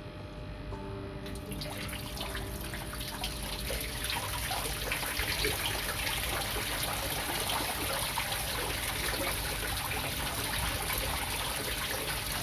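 Water from a pond pump starting to pour through a homemade waterfall box and splash back into the pond; the splashing begins about a second in and grows steadily louder as the flow builds.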